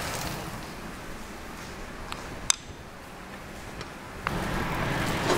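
Sliced onions sizzling in hot coconut oil in a wok, a steady frying hiss. A single sharp tick comes about halfway through, and the sizzle grows louder near the end.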